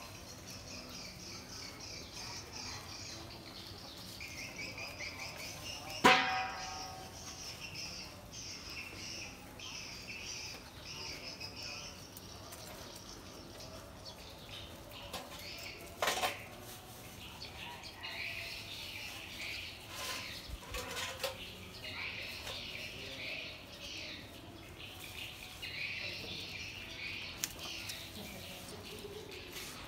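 Small birds chirping steadily in the background. About six seconds in there is a loud metallic clank with a short ring, and about ten seconds later a sharper knock, from a metal basin against concrete.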